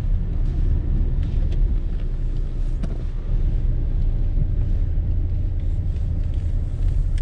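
Steady low rumble of a Nissan Terrano SUV on the move, heard from inside the cabin: engine and tyre noise on the road.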